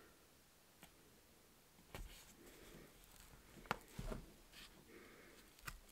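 Near silence with a few faint taps and light rustles of hands pressing washi tape onto a planner page and moving a tape roll on the desk.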